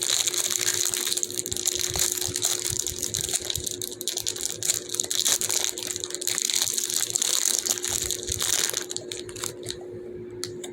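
Plastic bag crinkling as a sticky fidget toy is handled and pulled out of it: a dense crackling that thins to a few scattered clicks about nine seconds in.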